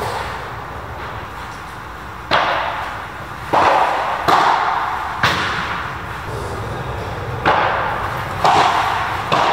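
Padel ball struck by rackets back and forth in a rally: about seven sharp pops, roughly a second apart, each ringing on briefly under the covered court's roof.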